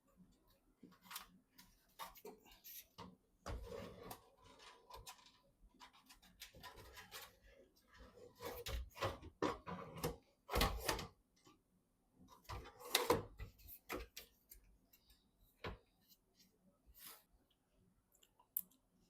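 Irregular clicks, taps and knocks of hands handling computer parts during a PC assembly, with a cluster of louder knocks about halfway through.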